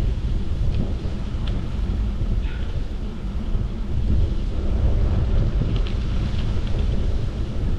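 Wind buffeting the microphone: a loud, irregular low rumble.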